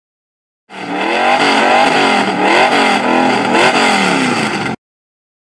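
A car engine revving in repeated blips, its pitch rising and falling several times. It starts under a second in and cuts off abruptly near the end.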